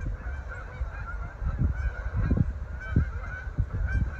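A flock of geese flying over, honking over and over with many short calls overlapping. Low rumbling thuds on the microphone sound underneath.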